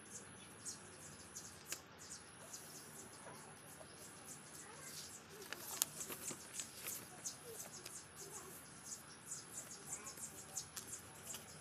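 A sheet of paper rustling and crinkling as hands fold and crease it into a paper airplane: light, quick scratchy touches that grow busier about halfway through. A thin, steady high-pitched tone runs behind it, dropping out briefly twice.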